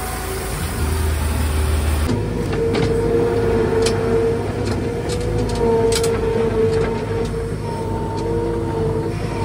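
Wood-Mizer LT35 portable sawmill running, a steady machine hum with a wavering whine and a few scattered clicks; the sound changes abruptly about two seconds in.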